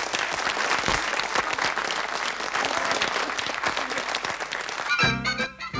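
Studio audience applauding, a dense, steady patter of clapping. About five seconds in the clapping gives way to a band striking up a lively tune.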